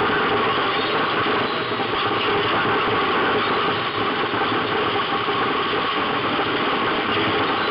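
Race car's engine running at speed, heard from inside the cabin, with road and wind noise; the sound stays at a steady level with little change in pitch.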